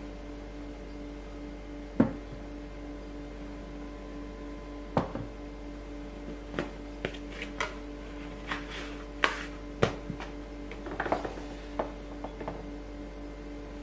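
Scattered knocks and taps of a plastic dough scraper and bread dough against a glass bowl and a wooden tabletop. The loudest knock comes about two seconds in, with a faint steady hum underneath.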